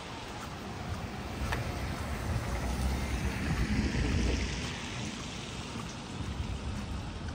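Wet street noise: a passing vehicle's tyres hiss on rain-soaked pavement, swelling over the first few seconds and then fading, over a steady wash of rain and water.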